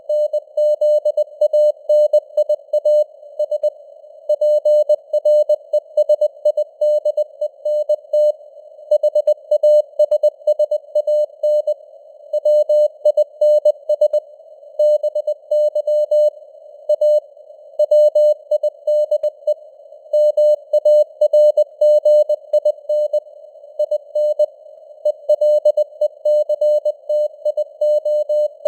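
Morse code (CW) sent at 20 words per minute: a single mid-pitched tone keyed on and off in dots and dashes, with letter and word gaps, over a narrow band of simulated radio static.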